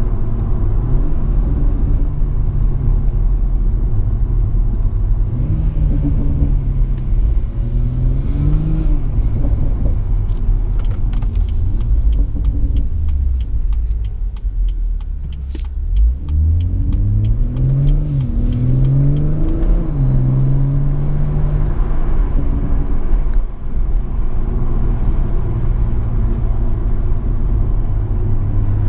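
BMW M140i's turbocharged 3.0-litre straight-six with the M Performance exhaust, heard from inside the cabin. The engine note climbs in steps with short drops at the gear changes, eases off to a quieter lull around the middle, climbs through the gears again and then settles into steady cruising, over a constant low road rumble.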